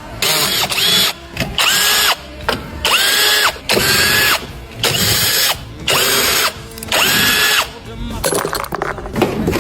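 Power ratchet wrench run in about seven short bursts, each with a motor whine that rises as it spins up and drops as it stops.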